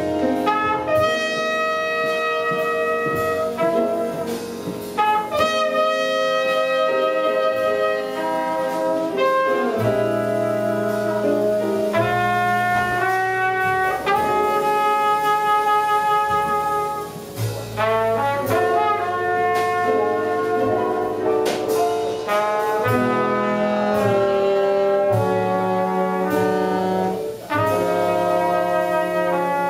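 Jazz quintet playing live: trumpet and tenor-range saxophone hold long, sustained melody notes together over piano, bass and drums with light cymbal strokes.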